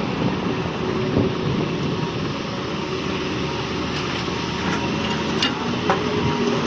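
Heavy excavator diesel engine running steadily, with a few brief sharp clicks in the second half.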